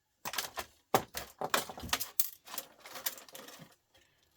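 Irregular clicking and clinking of small metal and plastic parts from a fluorescent light fitting being handled and pulled apart by hand, several sharp knocks close together.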